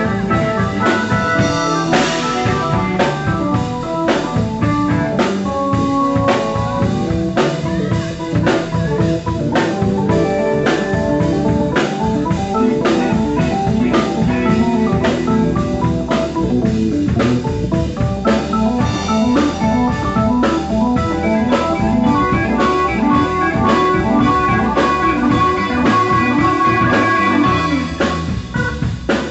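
Live blues band playing an instrumental passage: organ on a stage keyboard over electric guitar and a drum kit keeping a steady beat.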